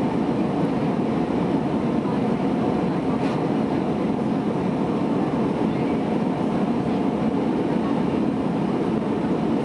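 Steady cabin noise of an Airbus A320 airliner in flight: the even rush of airflow and engine drone heard from inside the passenger cabin, with no changes.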